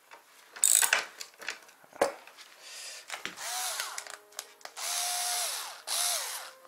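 A small handheld power tool's motor runs in four short bursts, spinning up and winding down each time, as a scooter deck bolt is backed out. There are sharp metal tool clicks in the first couple of seconds.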